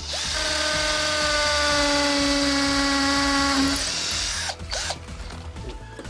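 Cordless 21 V drill boring into an old wooden plank, its motor running with a steady whine for nearly four seconds before stopping. A few sharp knocks follow near the end.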